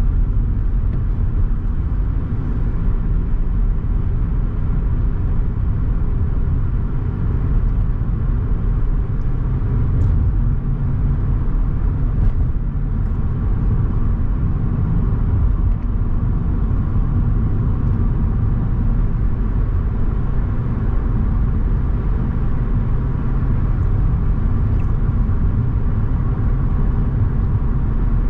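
A car driving along a road: steady low road and engine rumble that holds even throughout, with a couple of faint ticks about ten and twelve seconds in.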